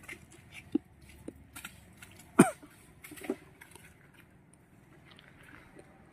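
A few short, throaty vocal sounds. The loudest comes about two and a half seconds in and drops quickly in pitch.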